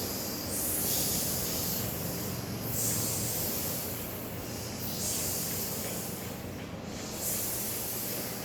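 A voice making the long hissing "sss" sound of the letter S, repeated about four times, each hiss lasting one to two seconds.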